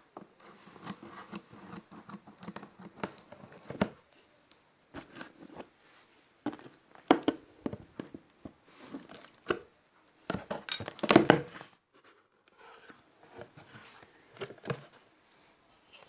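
Packaging being handled and torn open during unpacking: irregular crinkling, rustling and tearing, with a louder burst of crackling about eleven seconds in.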